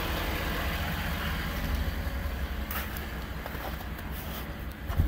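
Ford Super Duty pickup's engine idling steadily, a low rumble. A single sharp thump near the end.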